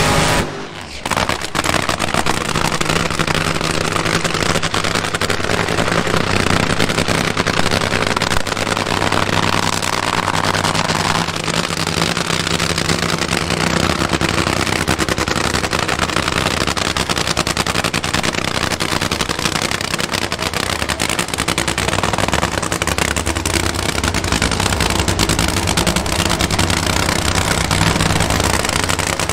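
Nitro-burning drag racing engine running loud and steady at an unchanging pitch, with a brief drop about half a second in.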